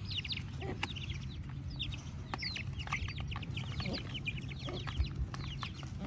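Aseel chicks peeping: many short, high chirps, each sliding down in pitch, coming thick and fast as they feed, over a steady low hum.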